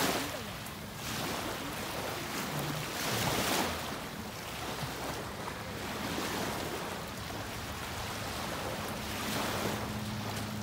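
Small waves lapping onto a flat sandy beach, the wash swelling and fading every few seconds.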